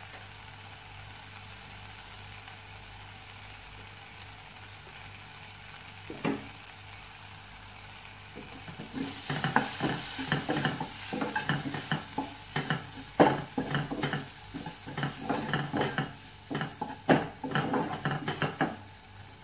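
Onion, tomato and spice-powder masala sizzling softly in oil in a non-stick pan, cooking off the raw smell of the turmeric and chilli powder. One knock about six seconds in, then from about nine seconds a spatula stirring and scraping against the pan in many quick, irregular strokes.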